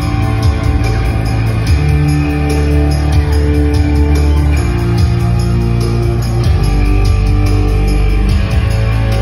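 Gothic rock band playing live and loud through the venue PA: electric guitar and bass over a steady beat, with the bass line moving to a new note every couple of seconds.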